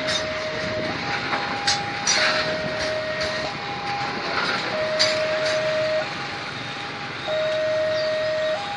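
Level-crossing warning alarm sounding its two-tone electronic signal, switching between a lower and a higher tone about every second, while a freight train's wagons roll past with a steady rumble and occasional sharp wheel clicks.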